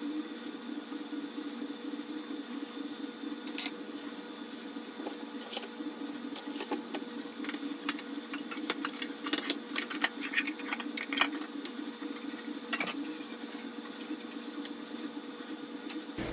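Breaded chicken pieces shallow-frying in oil in a stainless steel skillet over low heat: a steady sizzle, with a run of crackles and pops through the middle.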